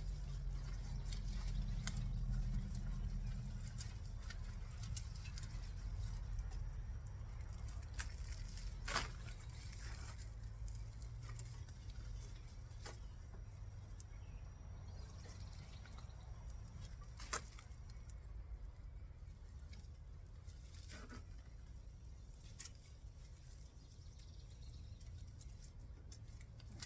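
Hands digging in loose garden soil to pull out potatoes, with a soft rustling and scratching of dirt and a few sharp clicks, over a low steady rumble.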